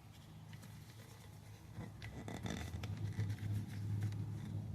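Soft scrapes and light ticks of a rubber snap-in TR412 tire valve stem being soaped up and handled, over a steady low hum that grows a little louder from about halfway through.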